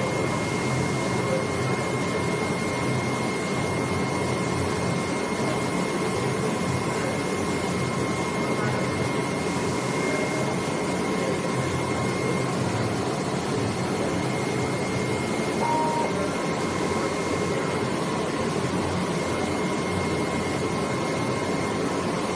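AOKE DCH30 flatbed CNC cutting machine running while it cuts a gasket sheet: a steady, even whir with two faint high steady whines over it.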